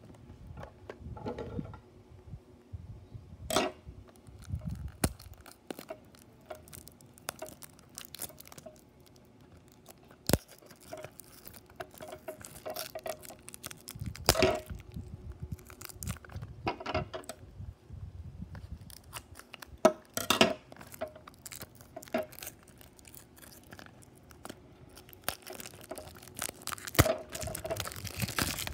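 Small cardboard die-cast toy-car box being handled and opened by hand: scattered taps, clicks and rustles of cardboard, with some tearing of the box's seal. The rustling thickens into a steadier scraping hiss near the end.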